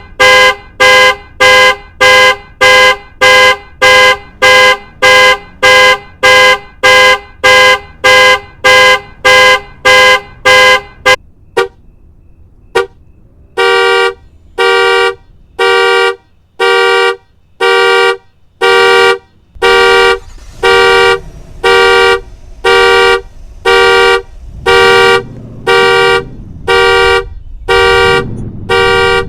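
Car alarm sounding the horn in regular pulses, about two honks a second. The honking breaks off about eleven seconds in, then resumes after a short pause at a slower pace of about one honk a second. A low rumble runs under the honks in the second half.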